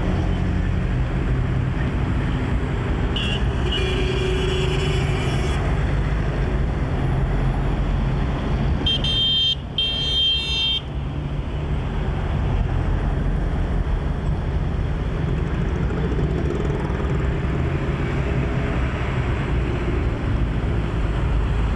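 Steady city road traffic: engines and tyres of many passing cars. Car horns sound from about three to six seconds in, and again twice around nine to eleven seconds in.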